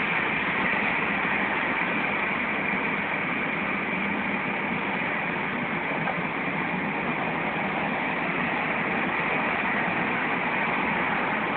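Steady road noise of a moving car heard from inside the cabin: an even hiss of tyres and engine that does not change.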